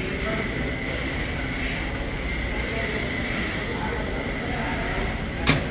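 Steady background hum of a gym during a set of glute kickbacks on a weight-stack machine, with a soft hiss repeating about once a second. A single sharp clank comes near the end.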